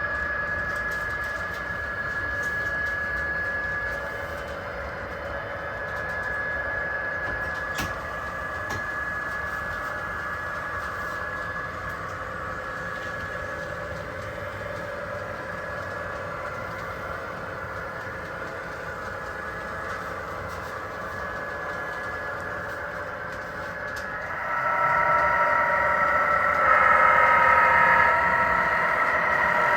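HO scale model diesel locomotive running on the layout track, a steady motor whine and rolling hum with several held tones. It grows louder and fuller about six seconds before the end.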